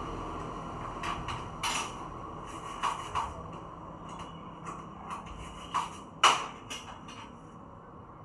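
A series of irregular light clicks and taps, like small parts or tools being handled, the loudest a sharp click about six seconds in. A whirring noise dies away at the start.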